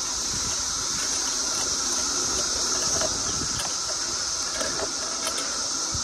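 Loud chorus of cicadas: a steady high-pitched drone with a lower steady hum beneath it, over the low rumble of a vehicle moving slowly along the road.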